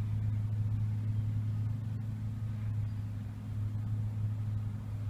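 Steady low hum that does not change, with no clicks or knocks over it.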